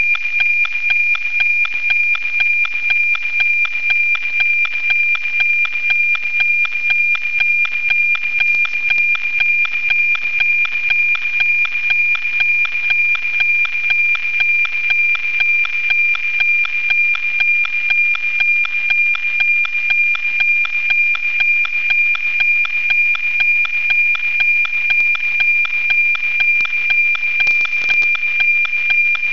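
NOAA 19 weather satellite's APT image signal as received by radio and FM-demodulated: a steady high tone with a regular tick-tock of about two beats a second. The beat comes from the image's scan lines.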